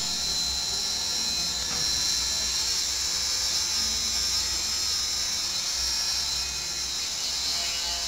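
Handheld electric rotary tool running with a steady high whine as it grinds down an African grey parrot's nails.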